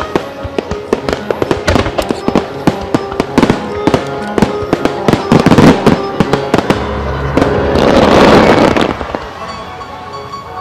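Starmine fireworks barrage: dense, rapid bangs and crackles of bursting shells over music played for the display, then a rushing hiss that swells about eight seconds in and dies away.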